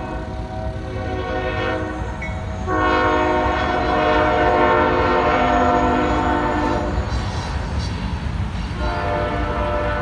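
Nathan K5HL five-chime air horn on a Union Pacific GE diesel locomotive sounding in several long blasts as the train approaches, loudest from about three to seven seconds in, with a short break near the end before it sounds again. A steady low rumble runs underneath.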